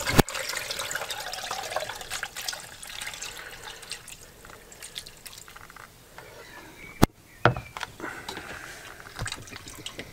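Liquid pouring from a plastic jug through a metal mesh sieve into a plastic jug, splashing and trickling, heaviest at first and then thinning to a trickle. Two sharp knocks come about seven seconds in.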